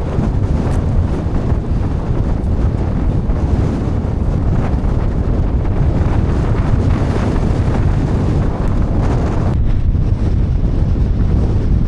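Strong gale-force wind buffeting the microphone: a loud, continuous low rumble that gusts and eases slightly near the end.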